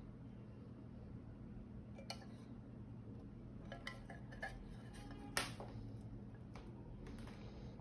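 Scattered light clicks and clinks of small hard objects being handled, the loudest about five seconds in, over a steady low hum.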